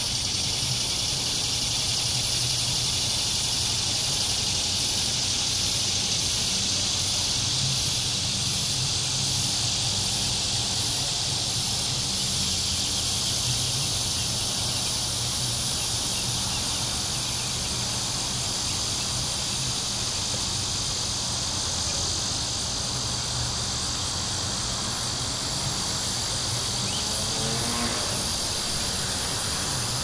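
Steady chorus of cicadas and crickets, a dense high hiss that holds level throughout, over a low rumble of distant traffic.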